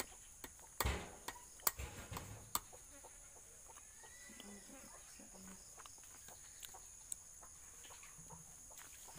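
Small knife cutting and scraping fresh coconut flesh, a string of sharp clicks in the first couple of seconds, then fainter scraping over a steady high hiss.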